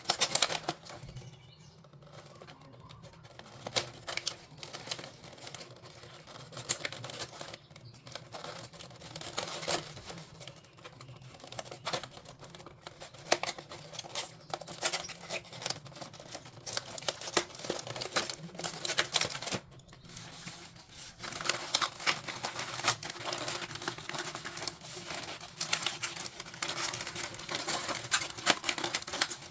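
Toys and their crinkly plastic packaging being handled and unwrapped: a steady run of small clicks, taps and crinkling, busier and louder in the last third.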